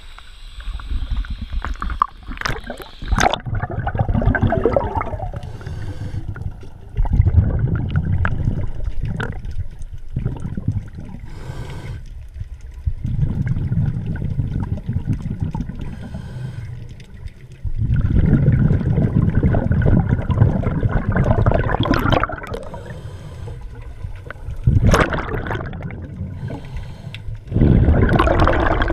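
Exhaled scuba bubbles gurgling and rumbling past an underwater camera housing, in repeated bursts of a few seconds each, one every several seconds with each breath out.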